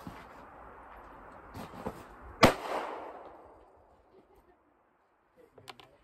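A single gunshot about two and a half seconds in, its echo dying away over about a second, with a few light clicks before it.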